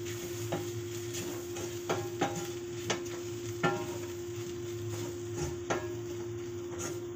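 Wooden spatula stirring and scraping onions and spice powders in a stainless steel pot, knocking against the metal at irregular intervals about once or twice a second. The masala is being sautéed on a low flame. A steady hiss and a low hum run underneath.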